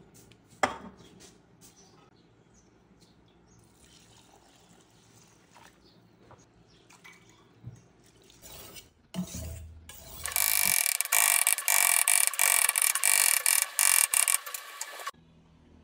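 Faint sounds of rice being washed by hand in water in a steel pot, then, about ten seconds in, a loud run of rapid crisp cuts as a knife slices red onions on a plastic cutting board, stopping abruptly after about five seconds.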